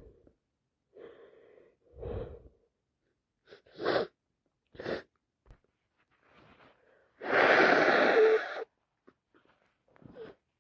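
A woman with a bad cold and an itchy nose working up to a sneeze: soft breaths, then two short, sharp gasping in-breaths, then one long, loud sneeze about seven seconds in.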